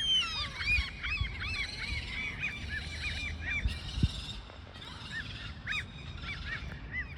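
Gulls calling: a rapid string of short, repeated calls that thins out after about three seconds to a few scattered calls, over a low background rumble.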